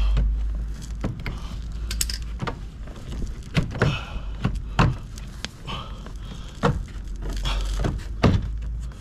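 Irregular knocks, clicks and rattles of hands working the plastic bumper and undertray parts loose under the front of a car, over a steady low rumble.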